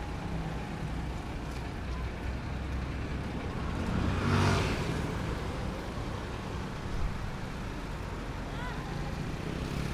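Street traffic with a steady low engine rumble. About four seconds in, vehicle noise swells loudly and fades again.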